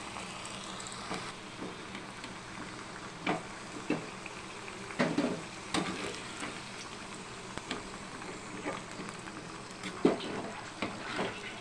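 Colocasia (taro root) slices shallow-frying in hot oil in a kadai, a steady sizzle. Several short knocks and scrapes of a metal slotted ladle against the pan as the fried slices are lifted out.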